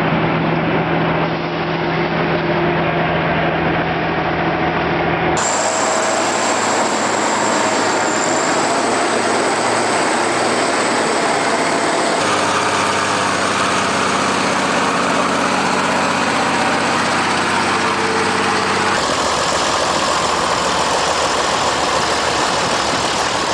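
Heavy diesel engine of a Kirovets K700 tractor converted to crawler tracks, running steadily; the engine note changes abruptly about five, twelve and nineteen seconds in.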